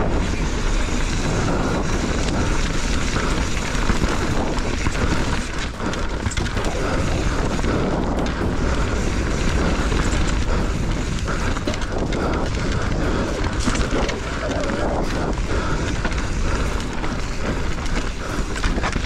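Mountain bike ridden hard down a rough enduro trail: tyres and frame clattering over dirt and rock in a dense run of knocks, under a constant rush of wind on the microphone.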